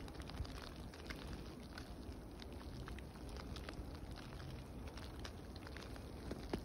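Ice-storm sleet falling and ticking on dry brush, branches and crusted snow: a dense, even crackle of many tiny impacts.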